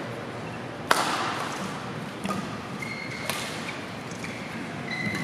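Badminton rackets striking a shuttlecock in a rally: three sharp cracks about a second apart, the first the loudest. Short high squeaks of court shoes on the floor and the murmur of a large crowd in a hall run underneath.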